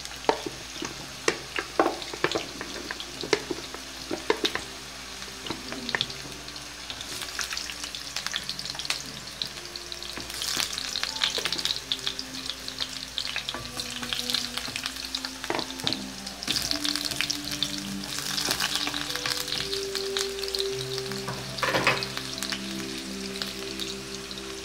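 Sweet potato slices frying in hot oil in a wok, a steady sizzle full of small crackles that grows busier in the second half.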